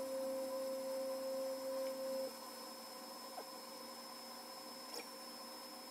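NymoLabs CNC with its 10-watt diode laser module cutting 1/8-inch birch plywood: a steady mid-pitched machine hum that drops away a little over two seconds in, over a faint high whine that runs throughout, with a couple of light ticks.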